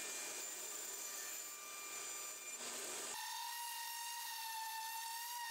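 Table saw cutting a glued-up wooden panel to square it, heard faintly; about three seconds in the sound changes abruptly to a steady high whine.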